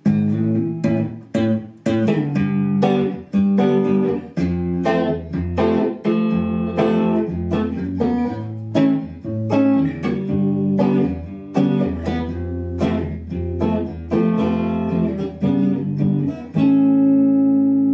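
1980s Fender two-knob Stratocaster electric guitar playing a run of picked notes and chords, ending on a chord left ringing near the end. The tone control is turned fully clockwise for a brighter, more treble sound.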